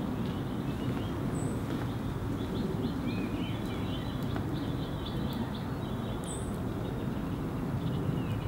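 Outdoor garden ambience: small birds chirping over a steady low rumble, with a brief high chirp about a second in and again past the middle.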